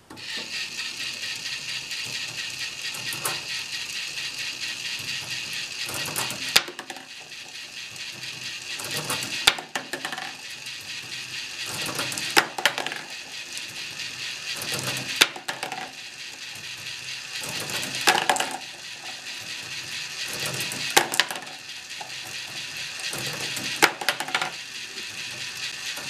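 K'nex marble lift starting up and running: a steady whir and rattle of its motor-driven plastic gears and chain. About every three seconds a sharp clack as a marble, picked up one at a time and thrown off the top, lands in a plastic tub.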